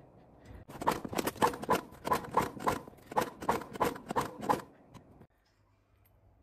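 Spark plug tool clicking and rattling on the generator's spark plug as it is tightened back in: a run of sharp, irregular clicks, about three or four a second, lasting some four seconds before it stops.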